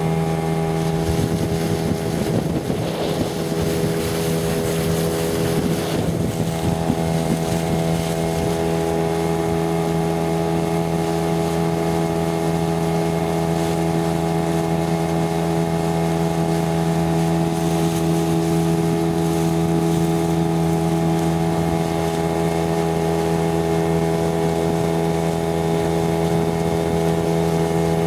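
Motorboat engine running at a steady cruising speed as the boat travels across open water, with wind rushing over the microphone, gustier during the first several seconds.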